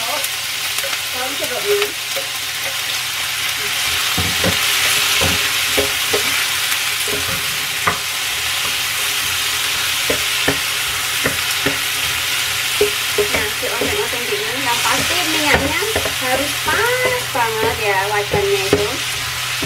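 Diced green tomato, spring onion, shallots and garlic sizzling in hot oil in a non-stick frying pan, with a steady hiss throughout. A wooden spatula stirs and tosses them, knocking and scraping against the pan many times.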